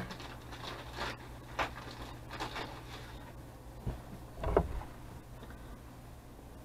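A person taking a hit on a box-mod vape and exhaling, with faint handling clicks and a short thump about four and a half seconds in.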